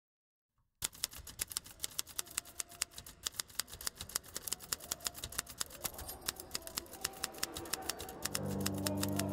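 A rapid, uneven run of sharp clicks, about six a second, like typing. It starts about a second in and grows gradually louder. Near the end a low, steady droning chord comes in beneath the clicks.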